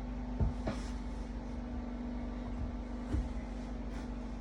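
A few light knocks, once about half a second in and again about three seconds in, as shifter parts are handled during the install, over a steady hum.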